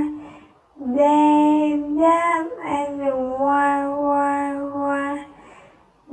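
A high voice singing long, drawn-out "why" notes held on a steady pitch, three in a row with brief breaks, the last one held for about two and a half seconds before fading out.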